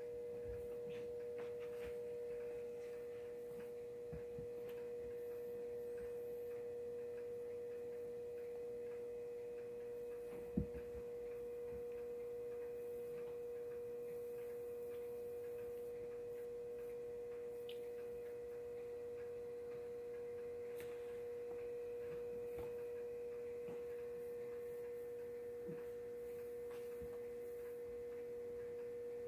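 A steady hum on one held tone, with a single sharp click about ten and a half seconds in.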